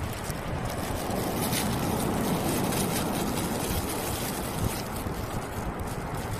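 Sea wind buffeting the microphone over the rush of surf, with a gust swelling about two seconds in.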